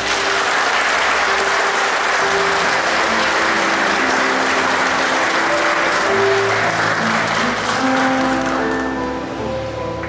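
Audience applauding while instrumental music plays; the clapping fades out over the last couple of seconds, leaving the music.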